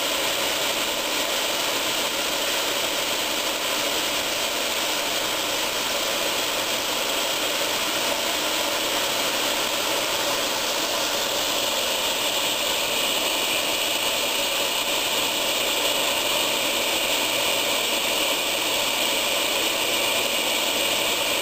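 Open-bowl centrifuge spinning at speed, a steady mechanical whir with hiss; the higher hiss grows a little stronger about halfway through.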